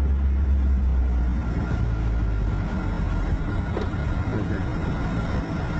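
Car engine and road rumble heard from inside a moving car's cabin, a steady low drone that eases off about a second and a half in, with one faint click near the end.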